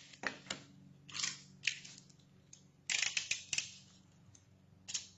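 Sheet of cardstock being shifted on a cutting mat and an aluminium ruler laid across it: a scatter of light paper rustles, taps and clicks, busiest about three seconds in.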